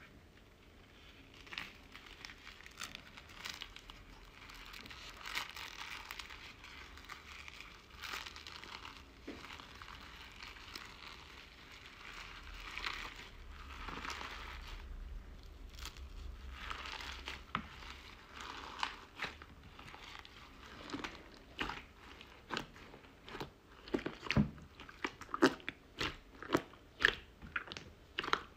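Hands squeezing and kneading a bowl of slime mixed with foam beads, giving soft crunchy, crackly squishing. In the second half, sharp short pops and clicks come more often and louder.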